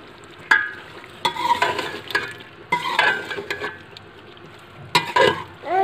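Metal ladle stirring a potato and aubergine curry in an aluminium degchi, scraping against the pot in several separate strokes, with the oily gravy sizzling over the heat.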